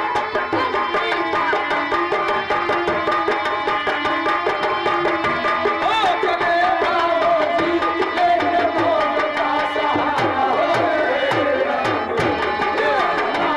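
Live folk-theatre music: a fast, steady hand-drum rhythm under a sustained, wavering melodic line.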